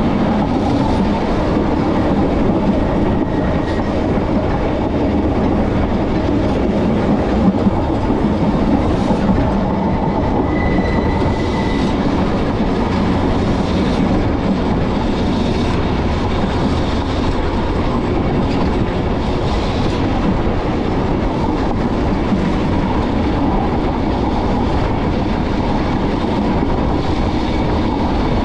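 Manx Electric Railway narrow-gauge electric tramcar running along the line, its wheels rolling over the rails in a steady, continuous rumble.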